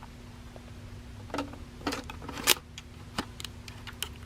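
Sharp plastic clicks and knocks as an I-Type film pack is handled and pushed into a Polaroid Now camera's film compartment, with a faint steady hum underneath.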